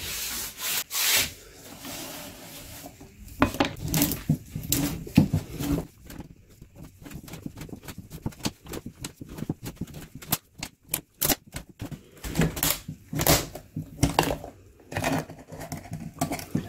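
Steel can of a used Mobil 1 M1-102A oil filter being turned by hand in a roller-type oil filter cutter as the cutting wheel cuts through the shell, making a rapid, irregular run of small metal clicks and scrapes.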